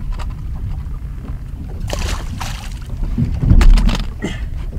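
Wind rumbling on the microphone and choppy water against a small fishing boat's hull, with a heavier low thump or surge about three and a half seconds in.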